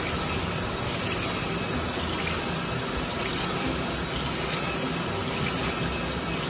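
Crankshaft grinder running, with a steady stream of coolant pouring and splashing over a Volvo Penta 8.1 crankshaft as it spins and one of its journals is ground round.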